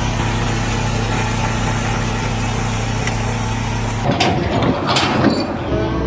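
An engine running steadily, then a few sharp knocks about four seconds in, followed near the end by a different engine whose pitch starts to rise.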